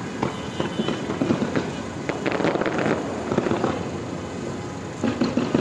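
Fireworks display going off in rapid crackling pops, thickest a little over two seconds in.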